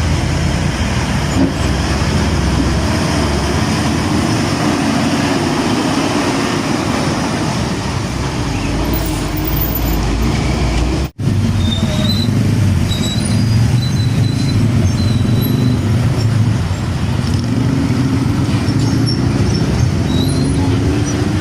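Heavy diesel trucks passing on a busy road: engines running and tyres on the asphalt, a loud, steady traffic noise, broken by a momentary dropout about eleven seconds in.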